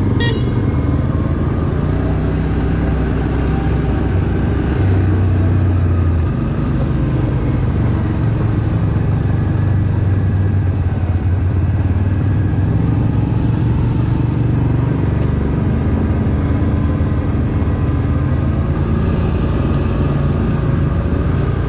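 ATV engine running steadily while riding, its pitch rising and falling slowly as the speed changes.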